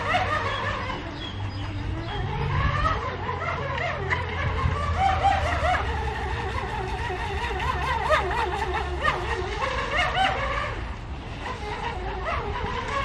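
Small radio-controlled speedboat running across a pond, its motor pitch rising and falling as it speeds and turns.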